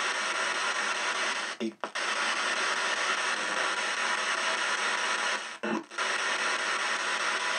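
Ghost box putting out steady radio static hiss. The static cuts out briefly twice, about two and six seconds in, with short snatches of other sound around each gap.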